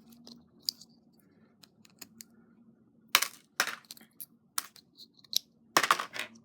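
Small plastic clicks and snaps of an MX keyboard switch being opened with a 3D printed elastoplastic switch opener. Faint ticks come first, then a handful of sharp clicks in the second half as the housing pops apart, the loudest near the end.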